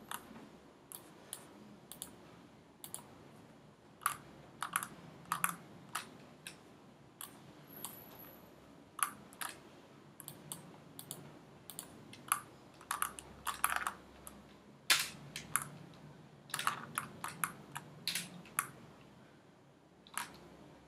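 Irregular clicking of a computer mouse and keyboard, single clicks and quick runs of several, over a faint low room hum.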